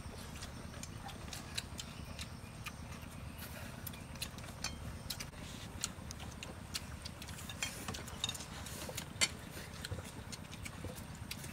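Chopsticks clicking and tapping against bowls as several people eat noodles, with soft slurping now and then.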